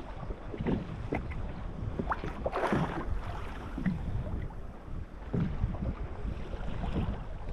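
Wind rushing over the microphone above choppy water, with small waves lapping and slapping against the fishing kayak's hull at irregular moments; one louder splash comes about two and a half seconds in.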